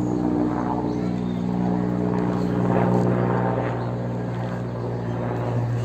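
Helicopter flying overhead, a steady drone of rotor and engine with a low pitched hum.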